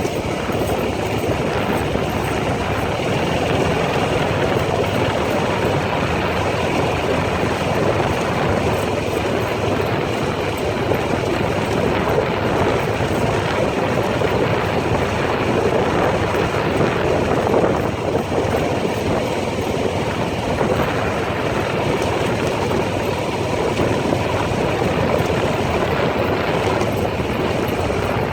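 ATV engine running steadily while the quad is ridden along a dirt trail, a loud, continuous engine noise with a fast pulsing throb.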